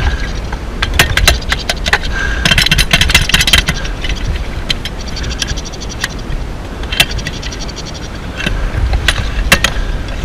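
Shuffling and scraping through loose blown-in attic insulation and over wooden joists, with a dense run of sharp clicks and knocks between about two and a half and three and a half seconds in and a few more later. A low rumble of handling noise from the body-worn GoPro runs underneath.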